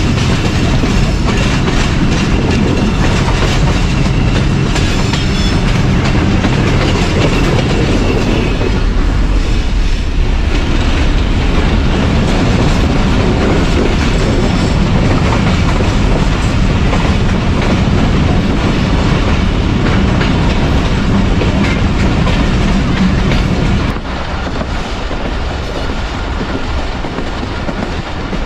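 Passenger train running along the track: a loud, steady rumble and rattle of the coaches' wheels on the rails. About four seconds before the end it drops suddenly to a somewhat lower level.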